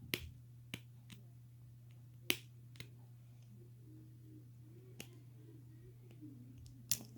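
Plastic Lego pieces clicking as they are handled and pressed together: about seven sharp, faint clicks at irregular intervals, over a steady low hum.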